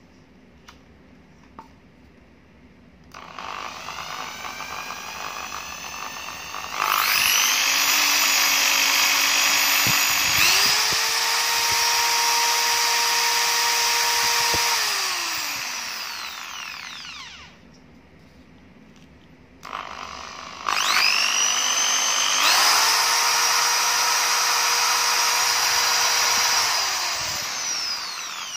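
Maktec MT80B corded hammer drill run with no load: its motor starts at low speed, steps up to a steady full-speed whine, then winds down after the trigger is released. It is started a second time and run up again, winding down near the end.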